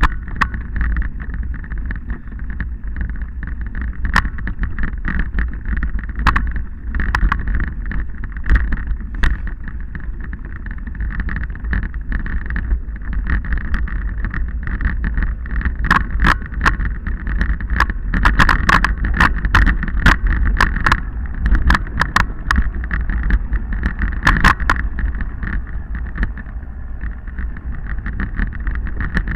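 Wind buffeting the microphone of a camera riding along a rocky dirt trail, with frequent sharp clicks and rattles from the bike jolting over stones, busiest past the middle.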